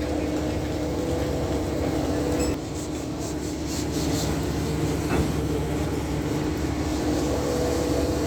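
Doosan DX420 excavator running steadily, its diesel engine and hydraulics holding a constant note. The sound drops a little about two and a half seconds in, with a few short high-pitched metallic squeaks just after.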